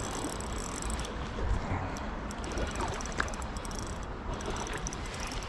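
Spinning reel being cranked to bring in a hooked fish, with scattered light clicks, over the steady rush of a shallow creek and a low rumble.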